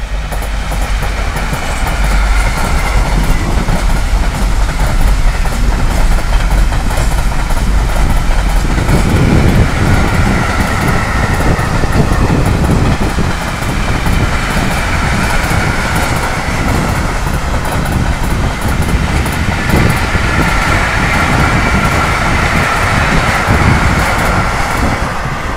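Container wagons of a freight train rolling past at speed: a continuous wheel-on-rail rumble with a steady high-pitched whine over it. The rumble grows heavier about nine seconds in.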